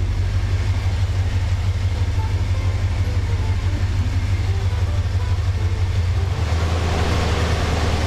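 1964 Dodge Custom 880's V8 idling steadily, its engine fan turning on a newly fitted fan clutch that is working without the old howl. About six seconds in, the engine note steps up a little and the rush of air from the fan grows louder.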